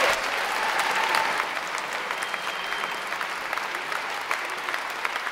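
Audience applauding, strongest in the first second or so and then steady.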